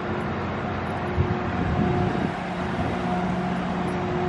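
Steady urban outdoor background noise: a continuous droning machine hum over a traffic-like wash.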